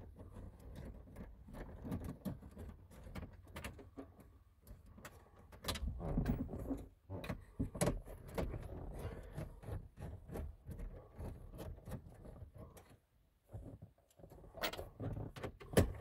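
A hand nut driver backing out the small 7mm screws that hold a factory car radio in the dash, with scattered clicks, scrapes and knocks of metal and plastic. There is a short pause about 13 seconds in and one sharp click near the end.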